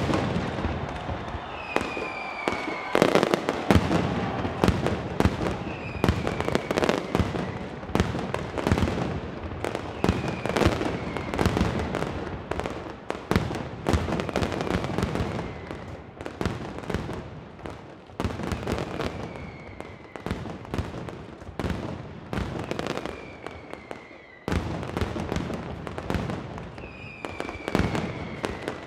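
Mascletà: strings of masclet firecrackers going off in dense, rapid chains of bangs, with short falling whistles every few seconds. About three-quarters of the way through, the bangs suddenly get louder.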